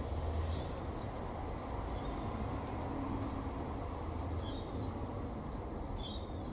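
Steady low hum and hiss of room noise, with a small bird chirping briefly about five times, each chirp a short high twitter.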